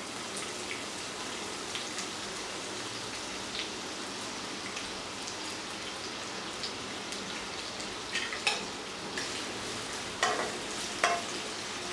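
Sliced onions sizzling steadily in hot oil in a nonstick kadai. A spatula stirs and knocks against the pan a few times near the end.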